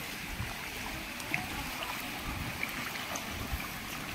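Shallow stream water running over a rock bed, a steady wash of noise, with irregular low rumbling on the microphone.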